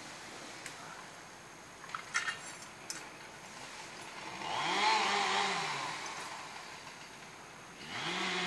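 An engine revs up and back down over about a second and a half, midway through. It revs up again near the end and holds a steady speed. A few light metallic clicks come before it, about two seconds in.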